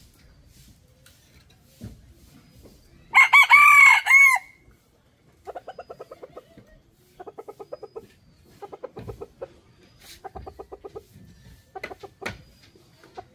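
A rooster crows once, loud and brief, about three seconds in, followed by several runs of rapid clucking from chickens.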